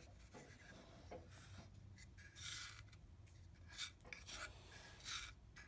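Faint rubbing and scraping as freshly ground coffee is handled to check the grind: a few short, scratchy swishes, the longest about two and a half seconds in.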